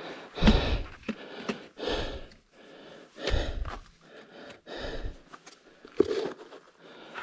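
Footsteps scuffing and crunching on a steep, rocky trail going downhill, uneven steps about every second or so with occasional dull thuds.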